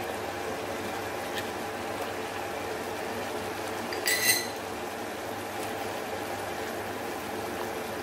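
Tomato sauce simmering in a frying pan, a steady bubbling hiss. About four seconds in there is a single short ringing clink as a spoon knocks against the pan or a cup.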